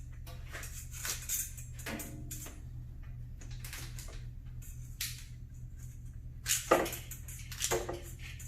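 Irregular metallic clinks and jingly rattles of a steel bandsaw blade being handled, over a steady low hum.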